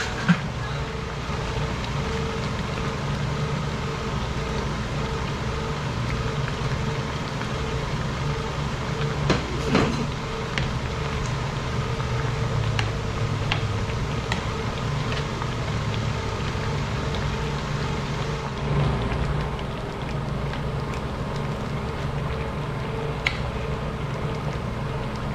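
A steady machine hum and rumble, with a few light clicks of a metal ladle against the pot.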